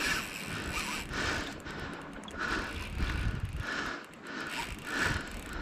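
Daiwa Saltiga Expedition spinning reel being cranked under load during a fight with a big tuna, a rhythmic whirr with each turn of the handle, about one and a half turns a second, over low wind and sea rumble.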